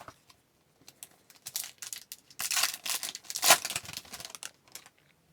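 A foil trading-card pack wrapper being crinkled and torn open, in a run of irregular rustling bursts starting about a second and a half in and loudest around the middle.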